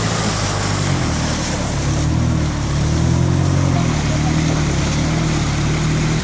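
Mitsubishi Pajero's engine pulling at low revs, its pitch rising and falling, as the 4x4 drives through a flooded stream bed with water rushing and splashing around its tyres.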